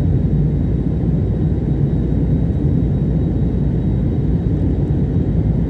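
Steady low drone of jet engines and rushing airflow, heard from inside an airliner's passenger cabin.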